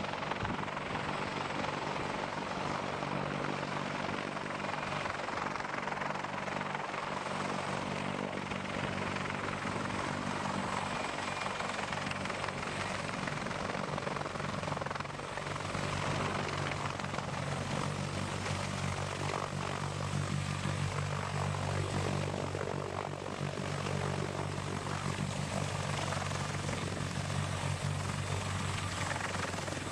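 CH-53 heavy-lift helicopter flying in close: a steady rotor and turbine drone with a deep low hum that grows stronger about halfway through as it comes in low to hover.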